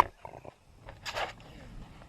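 A wild animal's short, noisy vocal sound about a second in.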